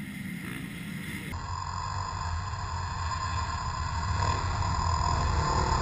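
A pack of motocross dirt bikes accelerating off the start, their engines droning together. It sets in sharply about a second in and grows steadily louder as the bikes approach.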